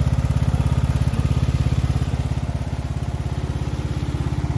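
Craftsman riding lawn mower's 13.5 horsepower engine running steadily with an even, rapid firing beat.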